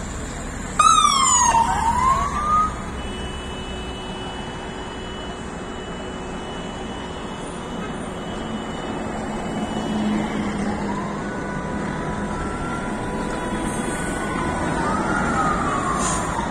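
Escort siren wailing, loudest about a second in with a quick falling-and-rising sweep, then fainter rising and falling wails near the end, over the engines of passing coaches and street traffic.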